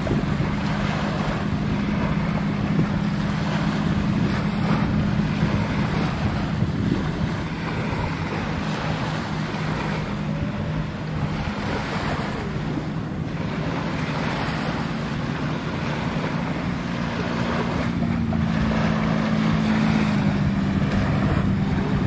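Small waves lapping and washing onto a sandy beach, with wind buffeting the microphone. A steady low hum runs underneath.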